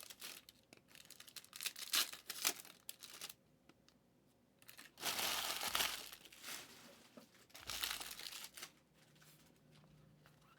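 Trading card pack wrappers being torn open and crinkled: a few sharp crackles, then a longer rip about five seconds in and another shorter one near eight seconds.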